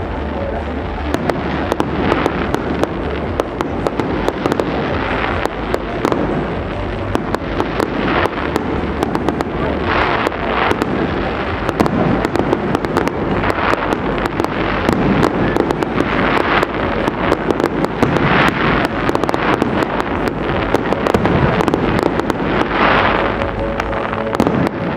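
Fireworks finale: a dense, continuous barrage of shells bursting, many sharp bangs and crackles overlapping with hardly a gap, with music playing underneath.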